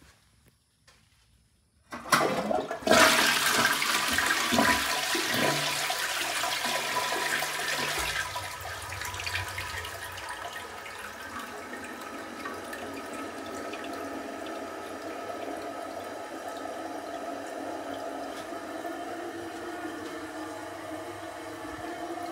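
Crane Rexmont Elite toilet flushing: about two seconds in, the flush starts suddenly with a loud rush of water. After about eight seconds it settles into steadier, quieter running as the toilet refills. The uploader notes that this toilet flushes strongly but doesn't siphon.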